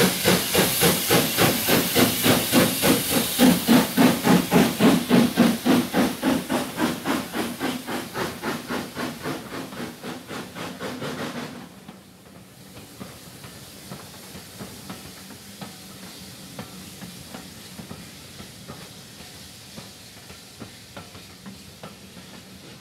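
Steam locomotive chuffing as it pulls a train away, about two to three exhaust beats a second over a steam hiss, fading as it draws off. About halfway through it drops away sharply to a much quieter rattle of coaches rolling past, with faint clicks.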